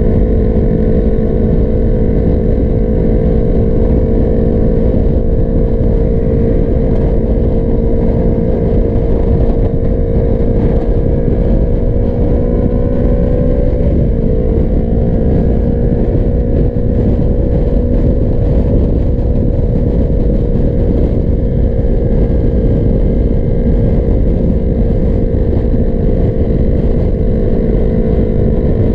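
Sport motorcycle engine running at a steady highway cruise, heard close from the rider's own bike over heavy wind rush on the microphone. About halfway through, the engine note creeps up and then drops suddenly before holding steady again.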